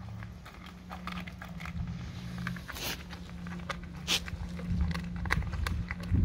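A dog chewing a raw salmon head, with wet, irregular crunches and clicks as its teeth work through the bones, over a steady low hum.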